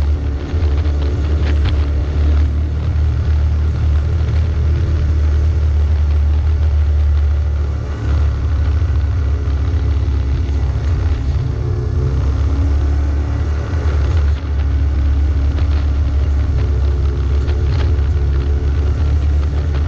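An off-road vehicle's engine running steadily as it climbs a rough dirt trail, with a heavy low rumble and scattered knocks from the bumps. The engine eases off briefly twice, about 8 and 14 seconds in.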